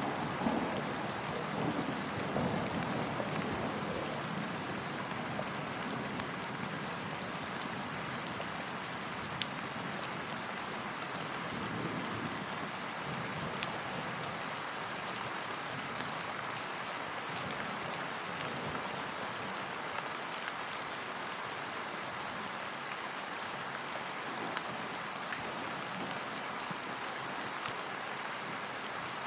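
Steady rain falling on a lake's surface, an even hiss with scattered faint drop ticks. A low roll of thunder fades away over the first few seconds, and a fainter rumble comes about twelve seconds in.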